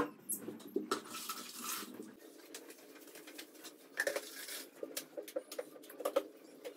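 Scattered light clicks, taps and rustling, with a brief rustle about a second in.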